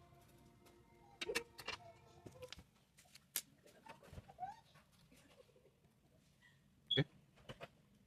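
Scattered light clicks and taps of small tools and parts being handled during phone repair work, the sharpest about seven seconds in.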